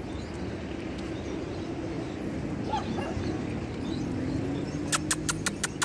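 Puppies and small dogs playing, with a brief yip and faint whimpering. Near the end comes a quick run of sharp clicks.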